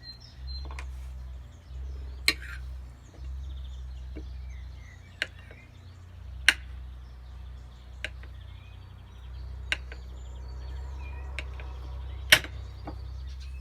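Knife cutting cheese, the blade knocking sharply on the board about eight times at irregular intervals, the loudest knock near the end. Birds chirp faintly behind it.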